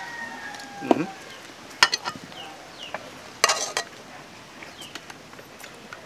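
Close mouth sounds of people eating grilled ribs by hand: sharp lip smacks and chewing clicks in two clusters, about two and three and a half seconds in. A rooster's crow tails off in the first second, and small birds give short chirps now and then.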